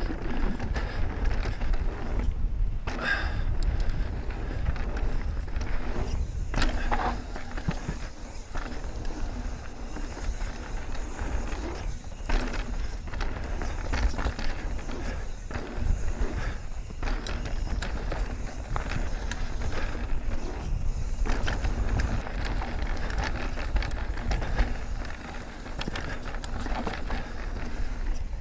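Mountain bike rolling fast down a dirt trail: a continuous low rumble of tyres on dirt, broken all the way through by rattles and knocks from the bike over bumps.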